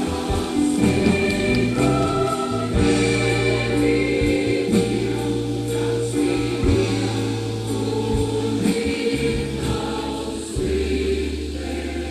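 Large massed choir singing in held chords, the notes shifting every second or two over a sustained low bass part.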